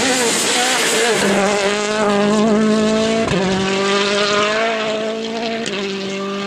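Citroën DS3 rally car at speed, its turbocharged four-cylinder engine held at a steady high pitch with a brief break about three seconds in, over a hiss of tyre noise. The sound eases slightly near the end as the car pulls away.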